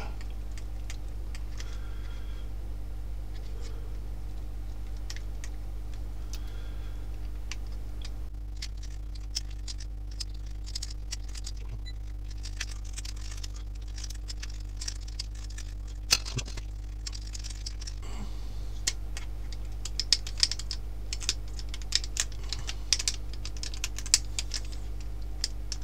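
Plastic body shell of a Holy Stone HS155 mini drone being pried apart with a small flathead screwdriver: many light clicks and snaps of plastic and tool, coming thicker from about a third of the way in, over a steady low hum.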